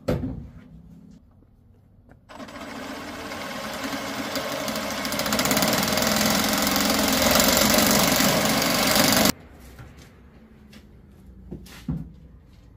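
Cordless reciprocating saw cutting through a metal roll-cage tube to shorten it by half an inch, running for about seven seconds, growing louder and then stopping suddenly. There is a knock at the start and a couple of knocks near the end.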